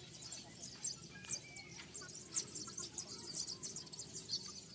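Small birds chirping in the trees: many quick, high chirps overlapping, with a couple of short whistled notes about a second in.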